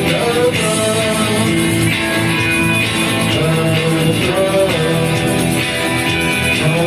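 Music: a song with a singing voice over instruments, guitar among them, playing steadily.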